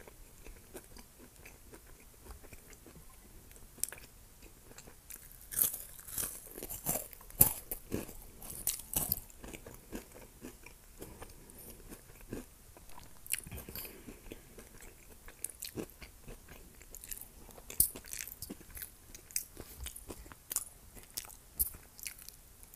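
Close-miked chewing of crunchy Hot Cheetos, with many sharp crunches, thickest about six to nine seconds in and more scattered after.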